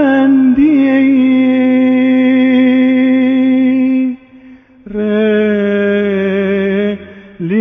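Orthodox liturgical chant: a voice sings long, slowly wavering held notes over a lower sustained drone, in two phrases with a short break about four seconds in.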